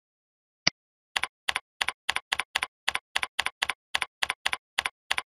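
A single mouse click, then computer keyboard typing: a quick, even run of about fifteen keystrokes, about four a second.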